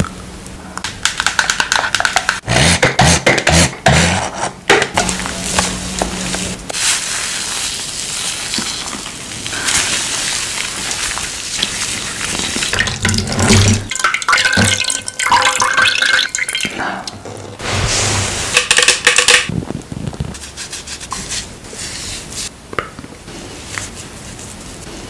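Close-up makeup-removal sounds: false eyelashes being peeled off the lids with sticky clicks and crackles, then hands rubbing a foaming cleanser over the wet face with splashing water. Near the end a cotton swab rubs under the eye.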